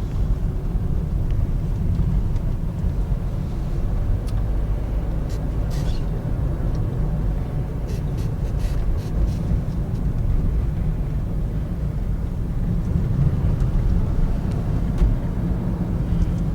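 Steady low rumble of a moving car's road and engine noise, with a few light clicks and rattles about halfway through.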